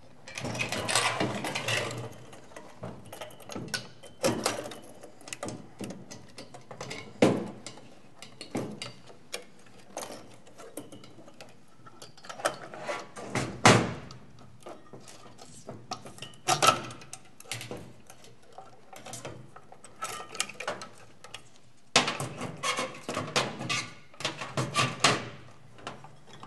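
Metal clicks, knocks and rattles of an avionics box being taken apart on a steel workbench: the metal case and its cover plates are handled and set down, and small parts and tools clink. The noises come in irregular clusters, the densest near the start, about halfway through and near the end.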